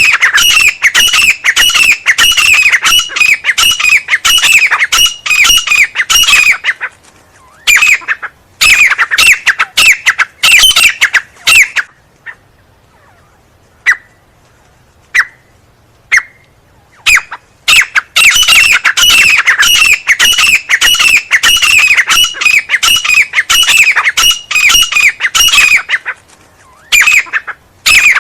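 Teetar (francolin) calling loudly in fast, continuous runs of falling notes. The calling breaks off briefly about 7 seconds in, then again from about 12 to 17 seconds, where only three single short notes sound, before the full calling resumes.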